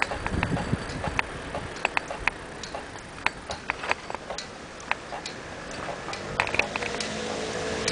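A bicycle rattling with irregular sharp clicks, a few a second, as it rides over the paving of a cycle path, over a low rumble from the ride.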